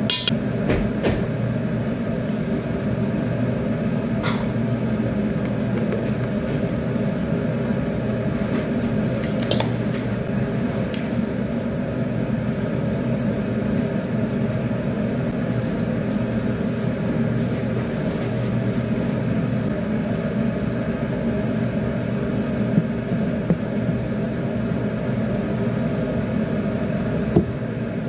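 Steady hum of a kitchen appliance's fan running, with a few faint clicks and taps of bowls being handled.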